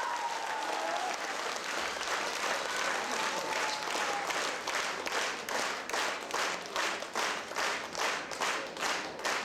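Theatre audience applauding. The scattered clapping falls into unison rhythmic clapping about halfway through, at about two to three claps a second.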